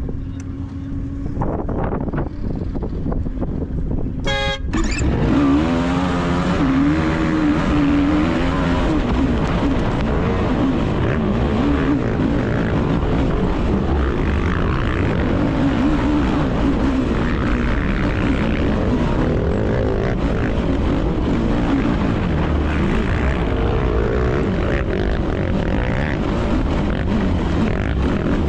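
Yamaha YFZ450R single-cylinder four-stroke ATV engine at a race start. It runs steadily, then after a short sharp sound about four seconds in it revs hard, rising and falling through the gears. It keeps running flat out over rough dirt among other racing quads.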